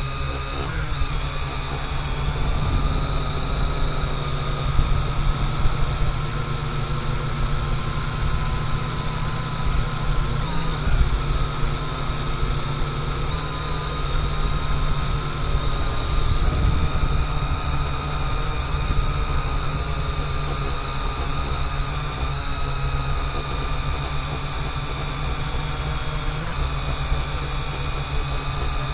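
Drone's electric motors and propellers whining steadily, heard from a camera carried on the drone, the pitch wavering slightly as it flies. A heavy low rumble of wind and vibration lies underneath.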